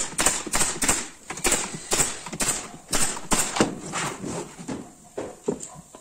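DeWalt nail gun firing a quick run of nails into pallet-wood boards, about ten sharp shots in the first three and a half seconds, then a few softer wooden knocks as the box is shifted.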